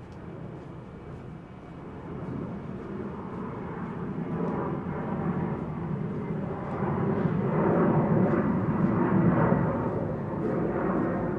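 City street traffic: a vehicle approaching and growing steadily louder over the background hum of the street.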